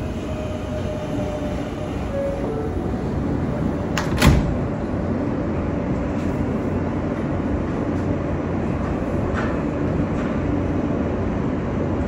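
Inside an R143 subway car pulling out of the station: a steady rolling rumble of the train. A single sharp clunk comes about four seconds in.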